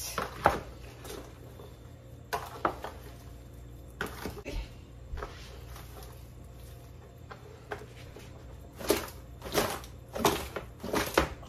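Hands tossing spice-coated croaker fish pieces in a large plastic basin: irregular slaps, knocks and scrapes of fish against the bowl, sparse at first and coming thicker near the end.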